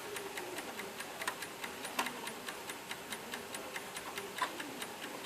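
Mechanical movement of a mid-century German mantel clock ticking steadily in an even run of light clicks.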